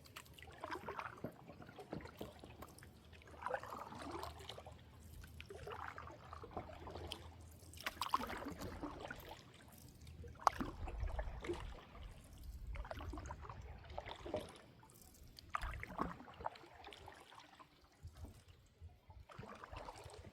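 Water splashing and trickling in soft, repeated strokes about every two seconds, quieter for a spell near the end.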